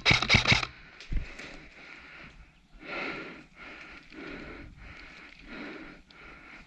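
A rapid run of sharp knocks cuts off within the first second, followed by a person's heavy, rhythmic breathing, loud on the microphone, as an airsoft player moves between positions.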